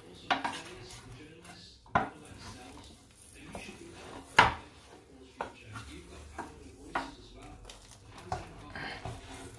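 Metal carving fork and wooden spatula knocking and scraping against a metal roasting pan as whole roast chickens are turned over. There are several sharp knocks, the loudest about four seconds in.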